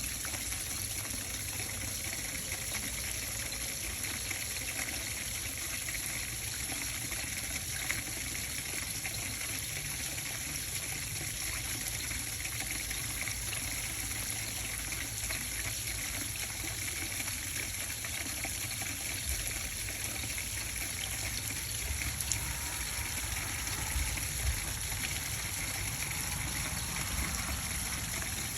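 Water running steadily down a JAS2003BLK rain chain, with a few faint knocks about 8 seconds in and again near 24 seconds.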